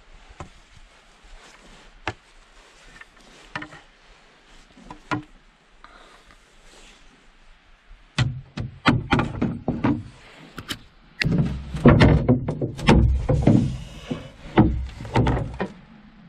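A canoe gliding into a rocky landing with a few soft clicks and knocks. From about halfway there is a run of loud, irregular knocks, thumps and scrapes as the canoe and its gear are handled on shore and the canoe is hoisted onto the shoulders for a portage.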